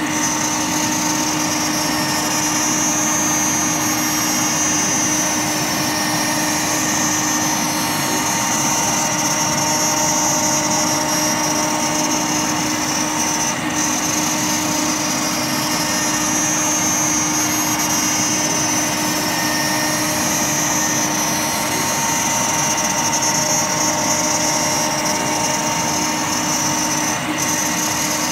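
CNC router spindle cutting a circle in clear acrylic sheet, with a vacuum dust extractor pulling the chips through the dust shoe: a steady high machine whine over cutting noise, unchanging throughout.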